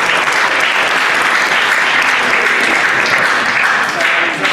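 Audience applauding steadily, a dense, even clatter of many hands clapping; a man's voice starts faintly near the end.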